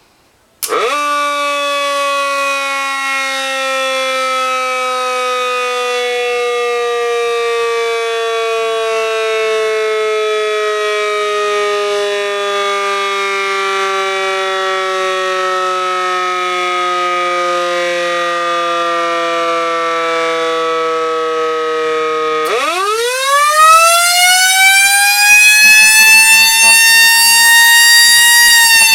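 Federal Signal C5 siren sounding: it starts abruptly with a fast rise, then falls slowly in pitch for about twenty seconds. It then winds up again, louder and higher, peaking near the end and starting to fall.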